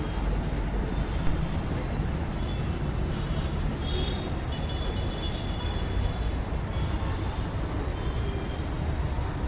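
Urban outdoor background noise: a steady low rumble, like distant road traffic, with faint high-pitched chirps now and then.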